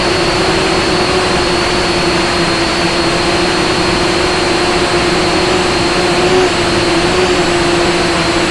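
Small camera drone's electric motors and propellers running in flight, heard up close from its own onboard camera: a steady, loud whine with a slight wobble in pitch.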